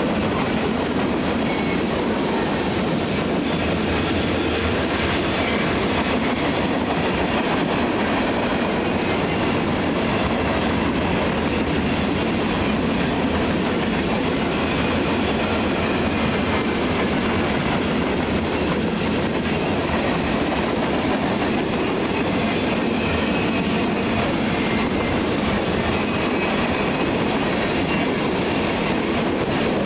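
Cars of a long mixed freight train rolling past close by: a steady, unbroken noise of steel wheels on rail as boxcars, hoppers, gondolas and tank cars go by.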